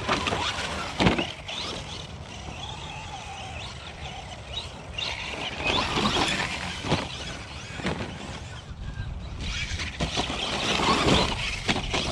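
Remote-control rally car driving hard on loose dirt, its motor whining up and down as it accelerates and the tyres scrabble and spray dirt. There is a sharp knock about a second in.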